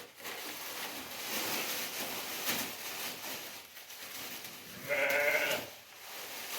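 A single short bleat from a goat or sheep, about five seconds in, over a steady hiss.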